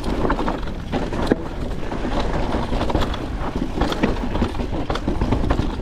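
Niner WFO e9 mountain bike riding fast downhill on a dirt trail: a steady rush of tyre and wind noise with frequent rapid clatters and knocks from the bike over rough ground.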